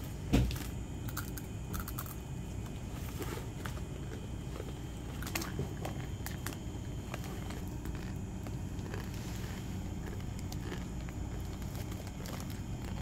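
Scattered crackles and crunches from plastic snack wrappers being handled and a crunchy dry-noodle snack being bitten, over a steady low room hum. A sharp knock comes just after the start.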